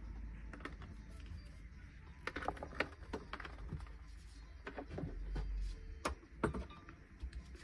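Scattered light clicks and knocks of a power-supply plug and its wires being handled and plugged in, over a faint low hum.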